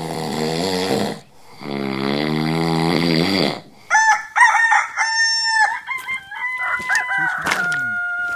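Rooster crowing: a run of long, drawn-out calls.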